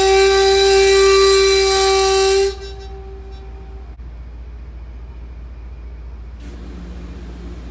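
Commuter train horn sounding one long steady note that cuts off abruptly about two and a half seconds in. Afterwards there is a low steady rumble, and a quieter low hum begins near the end.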